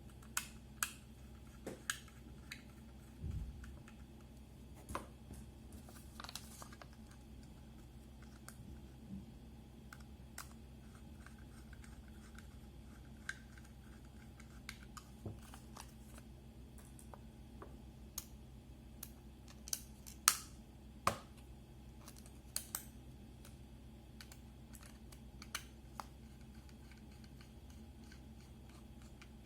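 Scattered small clicks and taps of a screwdriver and small screws, the sound of the drive's mounting screws being put back in during a laptop SSD swap. A few louder clicks come about two-thirds of the way through.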